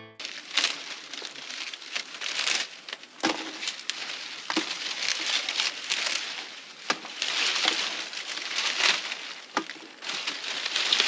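Dry, dead corn stalks and leaves rustling and crackling as they are handled by hand, with occasional sharp snaps.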